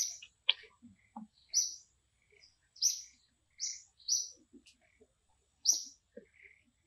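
A bird chirping over and over: short, high chirps about once a second, each one sliding slightly downward, with faint rustles in between.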